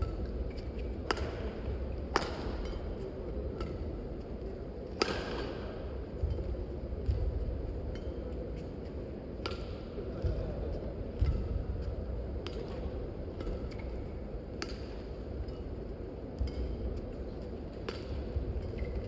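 Badminton rally: rackets striking a shuttlecock with sharp cracks every one to three seconds, one of them, about five seconds in, louder with a short ring after it, over a steady low background hum.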